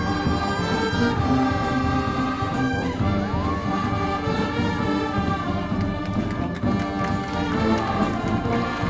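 Live brass band playing music, with held brass notes over a steady low drum beat.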